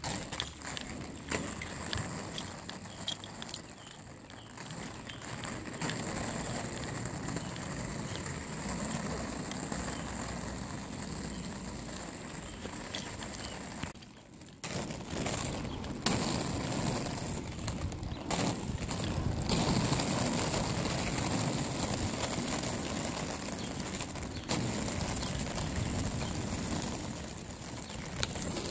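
Chaya SneekrSkate roller skates' outdoor wheels rolling over rough asphalt, a steady little rumble. It drops out briefly about halfway through and comes back a bit louder.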